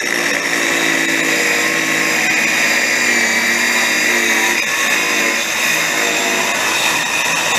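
Handheld electric circular saw running steadily as it cuts through the wooden top of an antique chest of drawers, with a high, even motor whine.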